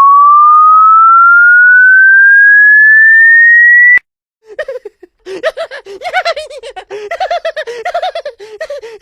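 A loud electronic pure tone gliding steadily upward in pitch, cutting off suddenly about four seconds in. After a brief silence comes a rapid run of short, high vocal squeals that rise and fall, several a second.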